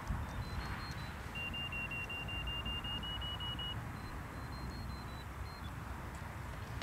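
A run of short electronic beeps from a small handheld device: a few high beeps, then a steady string of lower beeps, about five a second, creeping up in pitch, then more high beeps. A low rumble of wind on the microphone runs underneath.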